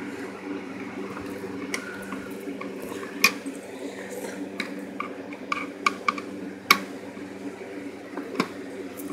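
Scattered sharp clicks and light taps of a Phillips screwdriver and screws against a Hoover vacuum's plastic housing as the screws are taken out, over a steady low hum.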